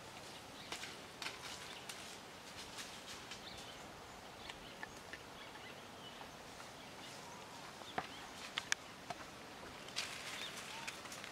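Faint outdoor ambience with scattered crackles and clicks of dry leaf litter, a few sharp ticks about eight seconds in, and a burst of rustling near the end as a macaque walks over the dry leaves.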